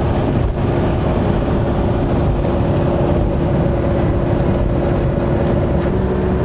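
Steady road and engine noise inside a car cruising at highway speed: a dense low drone of tyres and wind with a constant hum, which shifts slightly in pitch near the end.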